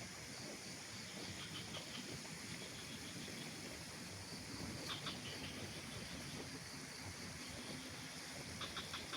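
Quiet mountain outdoor ambience: a steady low rush of air or distant water, with a few short clusters of high chirps from a small animal about a second and a half in, about five seconds in and near the end.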